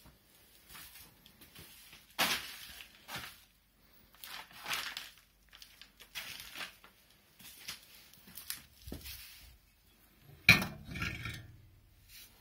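Clinks, scrapes and knocks of metal moped engine parts being handled. The loudest knock comes near the end and is followed by a short ringing.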